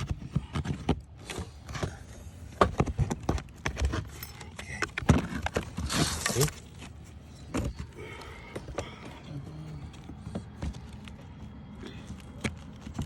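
Sharp irregular taps and knocks of metal tools on wood shakes as nails are worked out, with a brief scrape about six seconds in.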